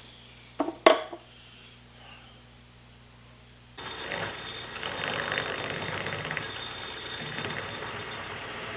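Two sharp knocks, then about four seconds in a machine starts up suddenly and runs steadily with a high whine.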